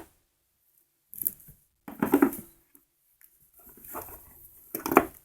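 Handling noises as the parts of a welding-inverter kit are moved about: irregular rustling and scraping with a few knocks, the sharpest knock near the end.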